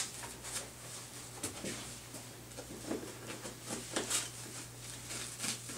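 Faint rustling and a few soft, irregular clicks of backboard straps and clothing being handled as a strap is laid across the patient's torso and fastened loosely, over a low steady hum.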